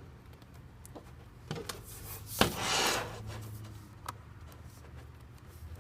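Glass panel being handled and set back onto a MacBook Pro display frame: a few light clicks, a sharp tap about two and a half seconds in followed by a brief scraping rub, then another click.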